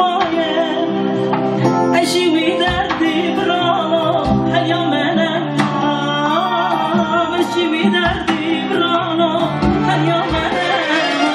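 A man singing a Yezidi song in a wavering, ornamented voice over band accompaniment, with drum hits every second or so.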